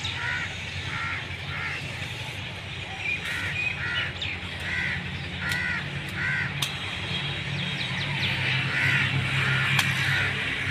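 Crows cawing repeatedly in short runs of calls, with a pause of about two seconds in the middle, over a steady low hum.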